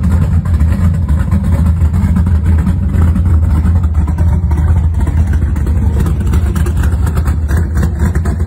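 Classic Dodge Challenger R/T's V8 idling steadily, a low exhaust rumble.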